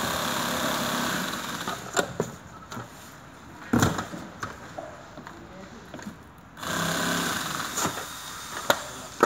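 A power screwdriver runs in two steady stretches of about two seconds each, one at the start and one near the end, driving screws into an office chair's parts. Between them come sharp knocks, the loudest about four seconds in, as the chair parts are handled.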